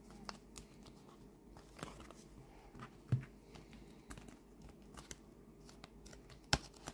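New tarot cards being handled and pried apart where they are still stuck together: faint rustling and scattered card clicks, with a sharper knock about three seconds in and a sharp click near the end.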